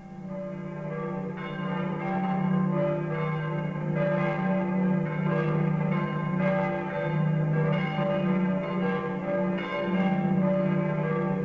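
Church bells ringing: several bells struck in overlapping succession in a continuous peal, swelling over the first two seconds.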